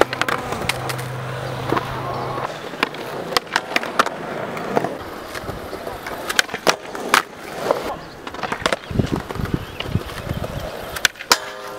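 Skateboard wheels rolling on smooth concrete, with many sharp clacks and knocks of the board.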